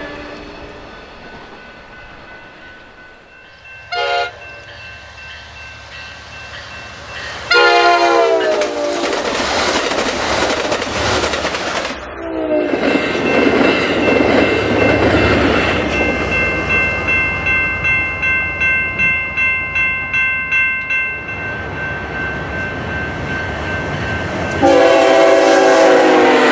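Diesel locomotive air horns on several passing passenger and freight trains, sounded in a few separate blasts, some dropping in pitch as the train goes by. Between the horns, the rush of passing cars and a steady clicking of wheels over rail joints, about two to three a second.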